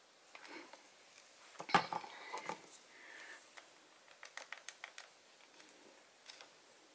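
Small plastic paint cups and wooden craft sticks clicking and knocking as the cups are handled and stirred. The loudest knocks come a little under two seconds in, and a quick run of light clicks comes about halfway through.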